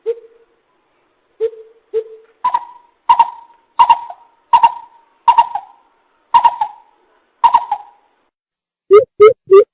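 Coucal (bìm bịp) calls from a bird-lure recording. A few deep single hoots come first, then a series of about eight higher, echoing notes spaced under a second apart. Near the end a fast run of low hoots begins.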